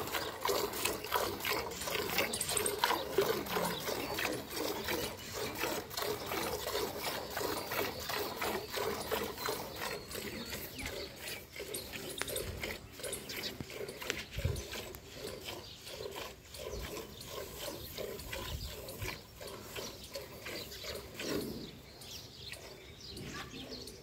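Buffalo being milked by hand: quick rhythmic squirts of milk striking a steel bucket, fainter in the second half.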